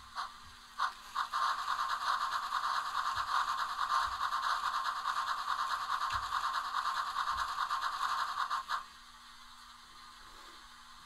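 Sound decoder of a Bachmann HO-scale steam locomotive playing a steam effect: a few short puffs, then a continuous hiss with a fast flutter that cuts off abruptly near the end, while the locomotives stand still.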